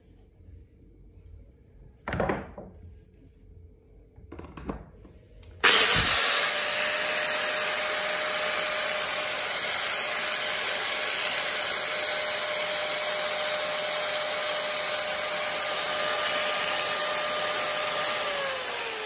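FEG 220 V angle grinder with no disc fitted, switched on about six seconds in and running free at a steady speed with a steady whine. Near the end it is switched off and its pitch falls as it winds down. Before it starts, two short knocks from the tool being handled.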